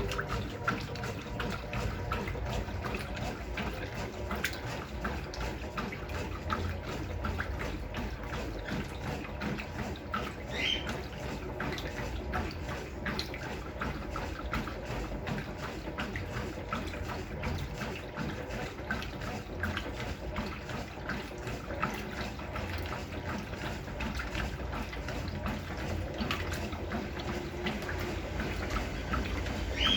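Brastemp Clean 6 kg top-loading washing machine running with water splashing and sloshing in its tub, a steady wash of water noise full of small splashes.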